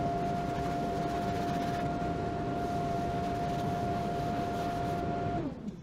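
Shop vacuum running steadily with a constant whine over a rushing hiss as it sucks wood chips off the walnut slabs. It shuts off near the end, the whine falling briefly as the motor winds down.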